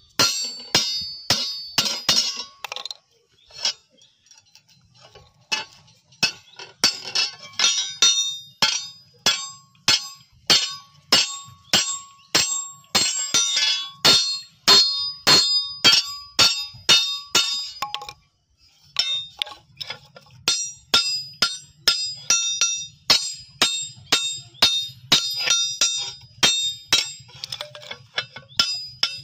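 Hand hammer striking a billhook's iron handle against its blade on a small steel anvil, fitting the handle: a long run of ringing metal blows at about two a second, with brief pauses about four seconds in and about two-thirds of the way through.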